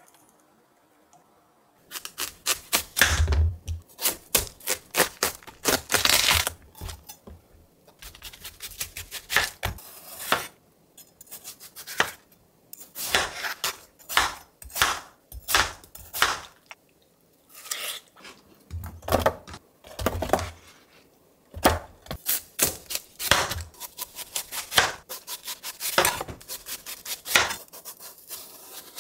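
Chef's knife cutting a whole watermelon on a cutting board: the rind crunches and splits in runs of quick crisp cuts with short pauses between them as the skin is pared off and the flesh sliced. There are a couple of dull thumps, about three seconds in and again near twenty seconds.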